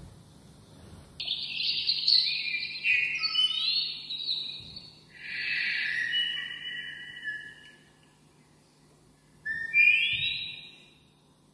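Dupont's lark (alondra ricotí) song played back from a recording: a phrase of clear, fluting whistled notes, several sliding upward, lasting several seconds, then after a pause a single rising whistle.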